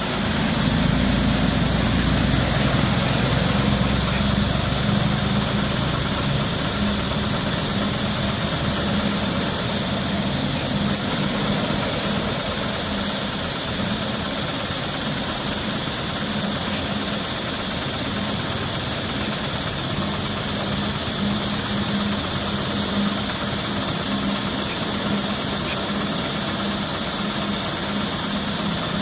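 An engine idling steadily, with a heavier low rumble in the first few seconds, over a steady high-pitched hum.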